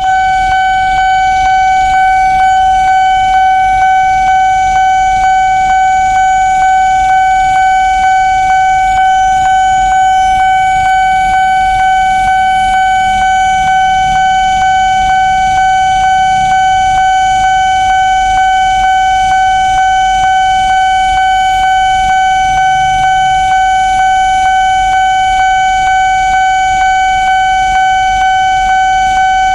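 Railway level-crossing warning bell sounding continuously: one steady ringing tone, pulsing in evenly repeating strokes, the signal that a train is approaching and the barriers are down.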